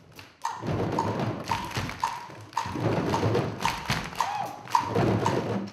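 Djembe hand drums beaten together in a driving rhythm, with a sharp higher knock about twice a second marking the beat. The drumming cuts off suddenly near the end.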